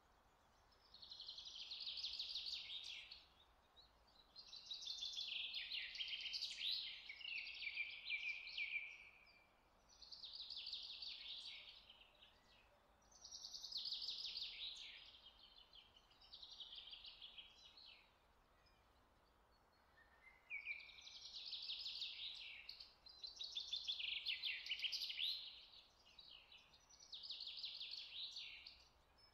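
A songbird singing high, rapidly trilled phrases of two to four seconds each, separated by short pauses.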